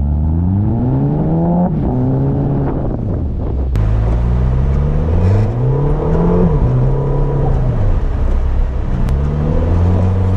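Audi TTS's turbocharged four-cylinder engine pulling on snowy road, its revs climbing and falling several times, with a sudden drop in pitch under two seconds in, over steady road rumble.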